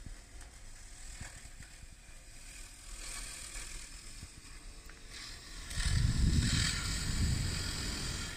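Failing cooling fan in a Lake Shore Model 335 temperature controller, running with a rough, unhealthy-sounding noise. It is faint at first, then about six seconds in it swells into a much louder rough rumble and hiss that goes quieter and louder.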